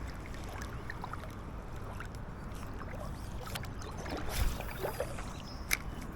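River water running steadily, with a few small knocks and a brief whoosh about four seconds in.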